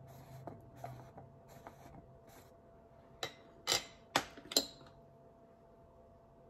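Makeup items being handled: faint rustling, then a quick cluster of four sharp small clicks and taps a little past three seconds in.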